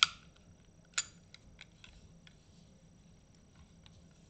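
Sig Sauer P320 pistol being handled: a sharp metallic click at the start and another about a second in, then a few faint clicks and taps of its parts.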